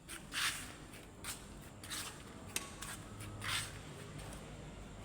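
A few short, soft scraping and rubbing sounds of something being handled, over a faint steady background.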